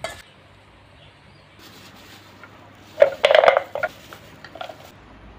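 Crisp fried popiah rolls and a spoon clattering against a steel bowl and a glass jar as the snacks are packed into the jar, with a short burst of rattling about three seconds in and a few lighter clicks after.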